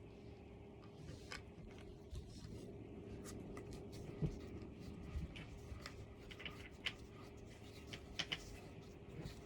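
Cat tree parts being handled and fitted together: scattered small clicks and light knocks of the pieces and hardware, over a steady faint hum.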